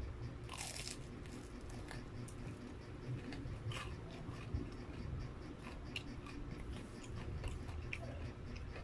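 A bite into crispy battered fried chicken, a sharp crunch about half a second in, followed by chewing with scattered small crunches and mouth clicks.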